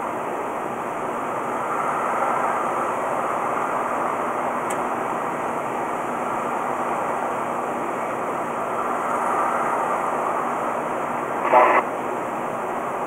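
Steady road and engine noise inside a vehicle cruising on a freeway at about 90 km/h, as heard through a dashcam microphone, with one brief louder sound near the end.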